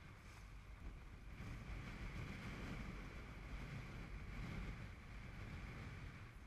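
Strong wind buffeting the microphone and water rushing along the hull of a small open sailboat (a Ness Yawl) sailing in 20 to 30 mph winds: a steady low rumble with a hiss over it, swelling louder for a few seconds in the middle.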